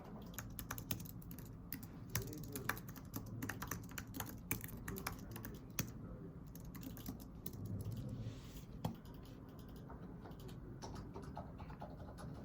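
Typing on a keyboard: a run of irregular, faint key clicks.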